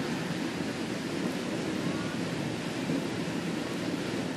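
Steady wind noise buffeting the camera microphone.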